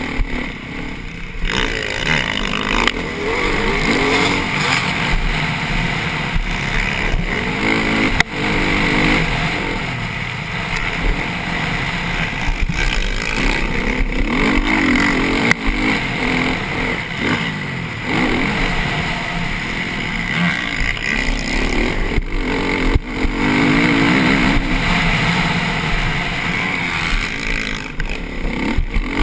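Motocross bike engine, heard on board, revving up and down over and over as the bike races round a dirt track, with a few sharp knocks.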